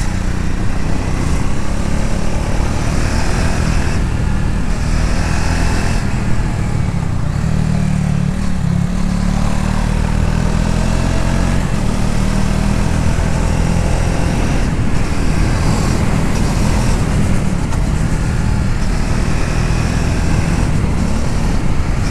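Triumph Speed 400's 398 cc single-cylinder engine running steadily as the motorcycle is ridden, with wind rushing past.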